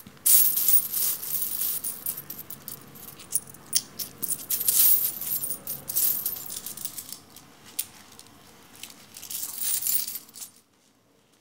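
Loose coins (pennies, nickels and dimes) clinking and jingling as they spill and rattle together in a series of bright clusters, dying away about a second before the end.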